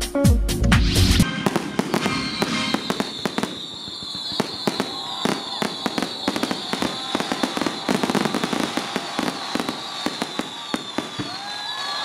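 About a second of electronic music with a heavy beat stops abruptly. Then a fireworks display: a dense run of crackling pops and bangs, threaded with many short, slightly falling whistles.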